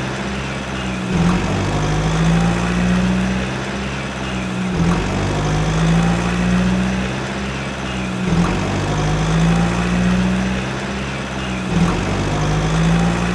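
Toy truck's engine sound effect idling in a repeating loop. It restarts about every three and a half seconds, with a short click at each repeat.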